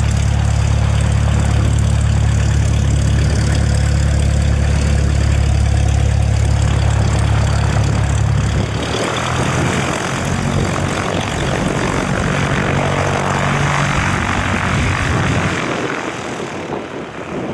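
Cessna 172's piston engine and propeller running at low taxiing power close by, a steady low drone. About eight seconds in the drone drops and a broader whooshing takes over as the plane moves past, then it fades near the end.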